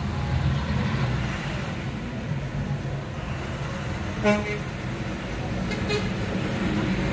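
Low, steady engine and traffic rumble heard from inside a car, with a short vehicle horn toot about four seconds in and a fainter, briefer toot near six seconds.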